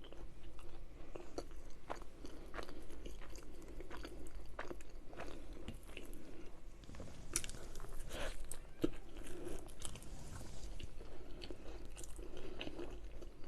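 Close-miked chewing of a mouthful of food: irregular wet mouth clicks and soft crunches, a few of them sharper, at no steady rhythm.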